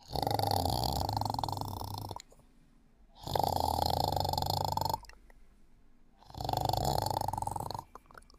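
Snoring in a steady rhythm: three long, fluttering snores of about two seconds each, with a quiet pause of about a second between them.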